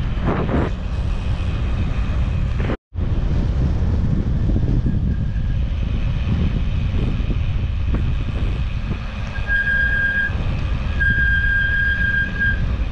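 Wind rushing over the microphone of a cyclist riding at speed. The sound drops out for an instant about three seconds in. A high, steady squeal sounds twice near the end, each lasting about a second.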